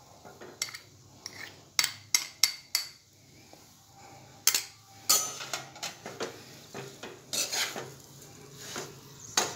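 Steel spoon tapping and scraping against a metal kadhai as a thick radish and carrot pickle mix is stirred: several sharp knocks in the first half, then longer scraping strokes.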